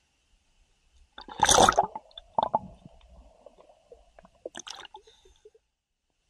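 Water splashing and gurgling around a camera as it dips under the sea surface and comes back up. There is a loud splash just over a second in, muffled sloshing, and another splash shortly before the end.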